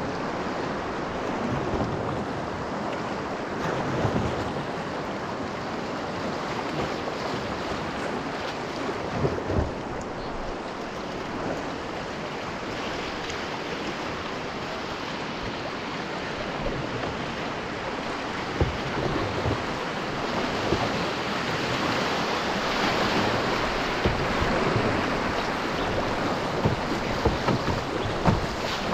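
Rushing whitewater rapids around a moving canoe, with wind buffeting the microphone and a few short low thumps.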